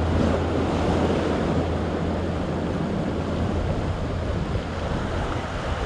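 Ocean surf washing and foaming around the rocks in a steady wash, with wind on the microphone adding a low rumble.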